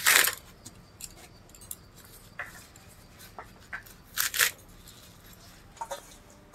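Kitchen clatter of metal utensils and dishes: a sharp clank right at the start, scattered small clinks, and two louder knocks about four seconds in.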